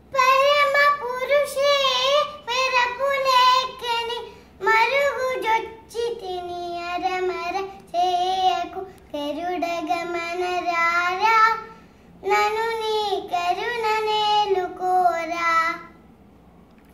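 A four-year-old girl singing a Carnatic song unaccompanied, in phrases with wavering, ornamented pitch and short breaths between them. She stops about a second before the end.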